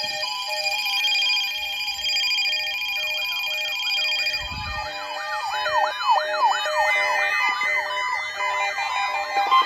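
Layered electronic sirens and alert tones: several steady high tones at first, then from about three seconds in, rapid rising-and-falling siren sweeps over short stepping beeps.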